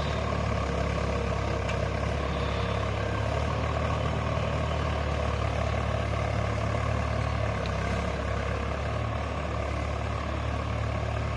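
Tractor engine running steadily under load, pulling a mouldboard plough through the field.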